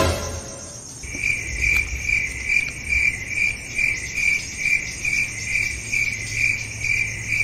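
Crickets chirping: a steady, evenly pulsed chirp about two and a half times a second, starting about a second in, over a low hum.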